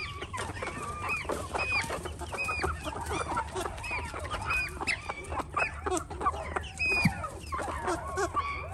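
A flock of young white chickens calling: many short, overlapping calls with no pause between them.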